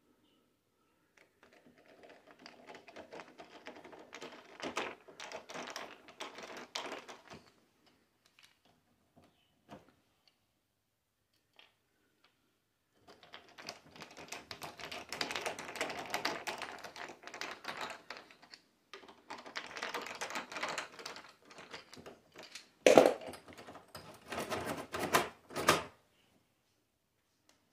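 Screwdriver turning the screws of a door-knob latch faceplate into the door edge: a quick run of small metal clicks and scrapes in two stretches with a pause between. A few louder, sharper clicks come near the end.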